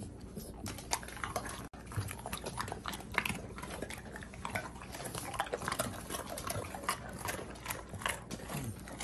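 Golden retrievers crunching hard biscuit dog treats taken from a hand: quick, irregular crunches and chewing.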